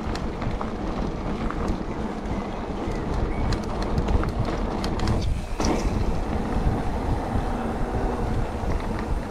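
Calibre Triple B mountain bike rolling along a gravel path: steady tyre noise with scattered small clicks and rattles, under low wind buffeting on the action camera's microphone.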